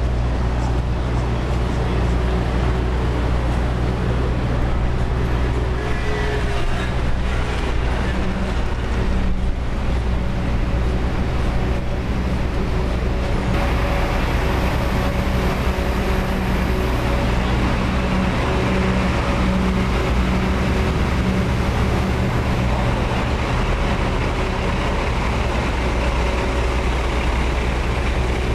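Street traffic with a large engine running steadily nearby: a constant low hum under the wash of passing vehicles.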